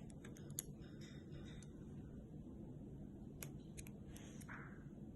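Faint, scattered small metallic clicks of a lock and locksmith's tools being handled, over a low steady room hum.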